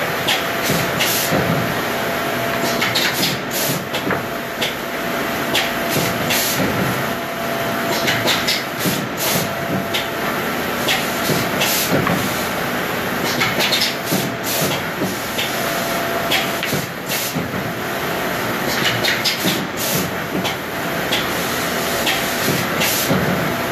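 Woodworking machinery running steadily with a faint whine, over which come frequent irregular knocks, clacks and scrapes of particleboard panels being slid along the machine table and handled.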